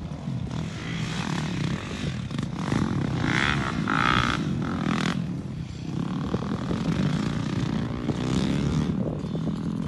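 Several dirt bike engines running around a motocross track, revving up and down as the riders accelerate and shift. One bike is loudest, with rising and falling revs, about three to five seconds in.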